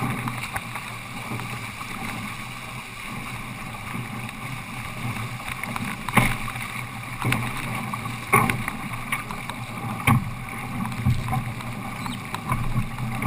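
A Longtze sailboat under way: steady rush of water and wind, with four sharp knocks or slaps in the middle of the stretch.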